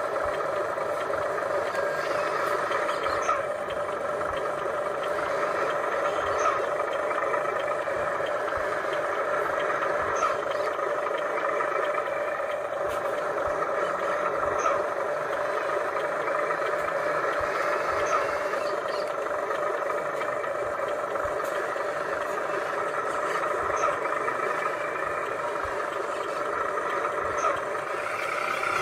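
Radio-controlled toy truck driving, its small electric motor and gears giving a steady whine, with faint clicks every few seconds.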